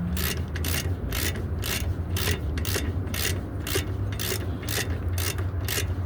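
Hand ratchet clicking steadily, about four clicks a second, as a 14 mm brake caliper bolt is run in and tightened, over a steady low hum.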